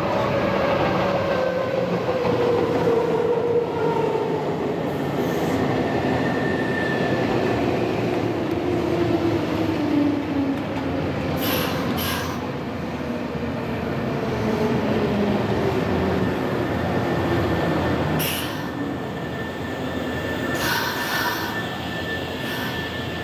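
Nankai Southern limited express electric train slowing into a station to stop: rumbling running noise with a whine that falls steadily in pitch as it decelerates, a few sharp clacks from the wheels, and a steady high squeal from the brakes or wheels in the last few seconds.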